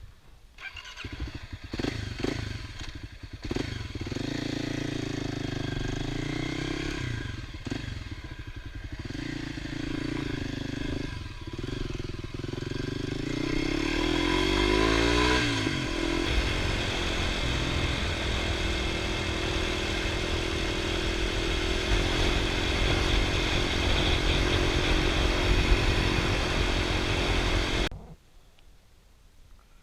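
Kawasaki KLX250 Final Edition's single-cylinder four-stroke engine under way: the engine note dips and rises several times, with a clear rise about halfway, then runs steadily. The sound cuts off abruptly near the end.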